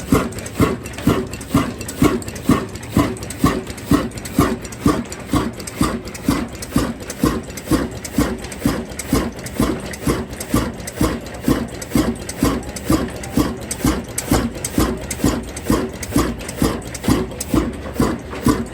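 Diesel engine running slowly and evenly: a steady, heavy rhythmic knock of about two strong beats a second, with lighter knocks between them.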